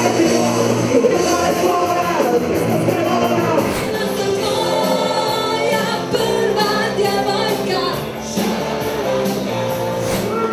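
Live band music with a woman singing lead. The song cuts abruptly to another about a third of the way in, and again just before the end.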